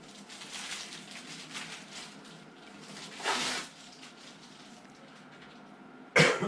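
Handling noises as small parts are picked up and moved: light rustling, a louder rustle or scrape about three seconds in, and a sharp knock near the end.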